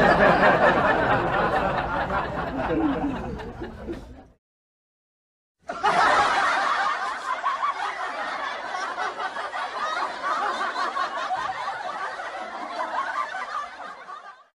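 Two recorded laugh sound effects, one after the other. The first lasts about four seconds and fades out; after a second or so of silence, a second laugh of about nine seconds starts suddenly and trails off near the end.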